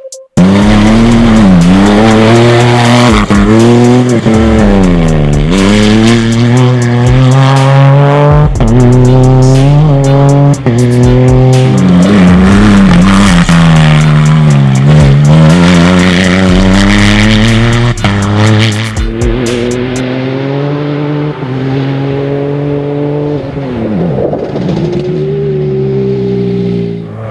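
Rally car engine driven hard, its pitch climbing and dropping over and over as it revs up through the gears and backs off. It eases somewhat from about two-thirds of the way through.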